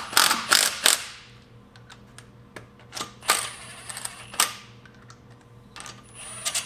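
Cordless impact wrench hammering wheel lug bolts in, in short rattling bursts: several in the first second, then sharp metallic clicks and a few brief bursts about three and four and a half seconds in and near the end.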